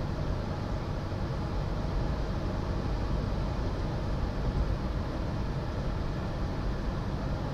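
Steady low rumble of a moving car heard inside its cabin: tyre and engine noise at a constant cruising speed.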